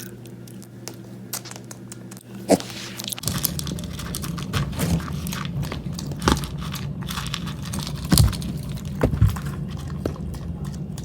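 Miniature pig chewing and crunching: a run of short crunches and clicks, with a few louder ones.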